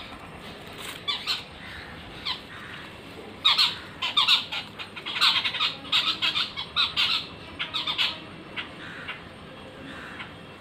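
Birds squawking in a run of short, harsh calls, busiest from about three to eight seconds in.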